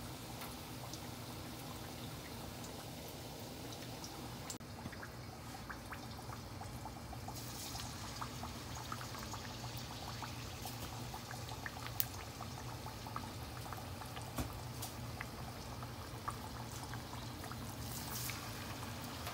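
Hot oil sizzling and bubbling in a wok: a steady hiss with many small scattered crackles.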